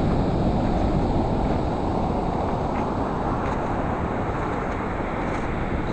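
Rough ocean surf with a steady rush of breaking waves and wind buffeting the microphone, heaviest in the low rumble.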